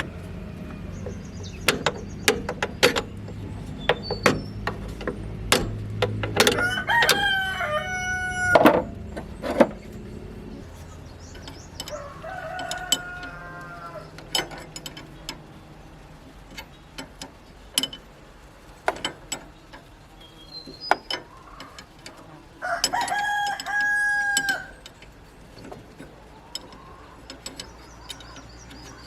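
A rooster crowing twice, two long calls of about two seconds each, with a fainter call between them. Sharp knocks and clinks sound on and off throughout, and a low hum fades out about a third of the way in.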